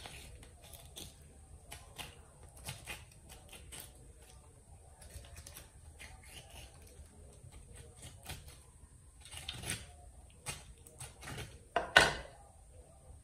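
Knife filleting a tilapia on a wooden cutting board: small scrapes, taps and clicks of the blade on fish and board, with one sharp, loud knock on the board about twelve seconds in.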